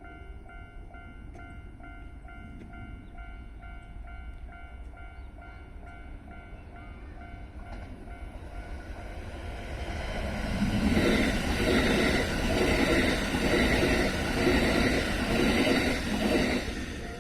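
Japanese level-crossing warning bell ringing, a repeating electronic ding about three times a second. About eight seconds in, a Kintetsu electric train comes up and passes over the crossing, its wheels clattering over the rail joints in a regular rhythm that becomes the loudest sound, then drops away just before the end.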